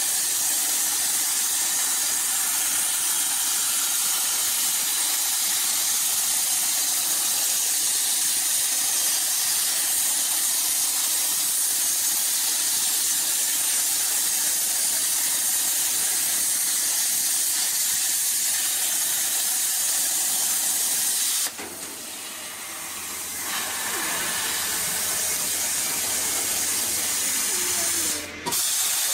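CNC plasma cutter's arc hissing steadily as it cuts steel plate. About two-thirds of the way through the hiss stops and a quieter hum and air noise is left while the torch is between cuts. The loud hiss starts again just before the end.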